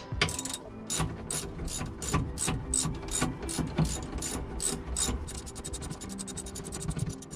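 Ratchet wrench clicking while a brake caliper bolt is tightened, about three clicks a second, then a much quicker run of clicks from about five seconds in.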